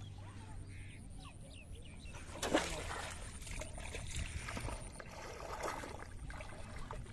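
Water splashing and sloshing, with one sharp splash about two and a half seconds in and further irregular sloshing after it.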